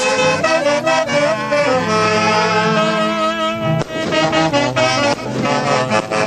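Live wind band of saxophones and brass playing dance music, the melody carried on sustained, overlapping notes.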